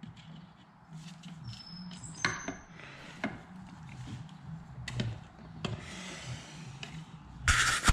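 Hand tools scraping and clicking against the screws of a Yamaha YZ85 engine case, a stripped Phillips screw among them, with a short squeak a couple of seconds in and a brief, louder scraping rasp near the end.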